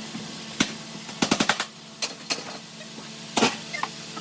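Pneumatic air hammer with a chisel bit knocking rivet heads off the school bus's sheet-metal panels, in short bursts of sharp metallic strikes. There is a single hit, then a quick run of about four, then scattered hits, with a louder double hit near the end.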